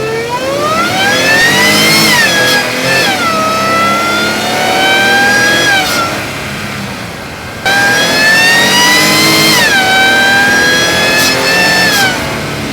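2016 Range Rover SVR's supercharged V8 accelerating hard, fitted with cold air intakes: a loud supercharger whine climbs in pitch, drops sharply and climbs again, twice over.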